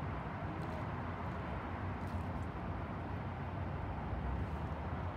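A steady low mechanical rumble with a light hiss and a few faint ticks.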